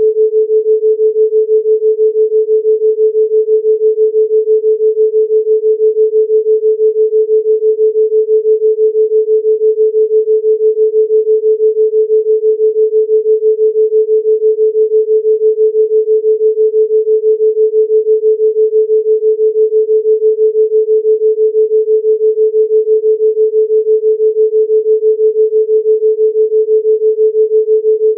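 A steady 432 Hz pure sine tone that pulses evenly in loudness, the beat of a theta binaural-beat track.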